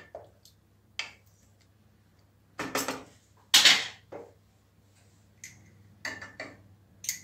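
Kitchen utensil clatter: a wooden spoon stirring and knocking against a stainless steel pot, then being set aside as a jar is picked up, heard as a string of separate knocks and clinks with the loudest a short clatter about three and a half seconds in.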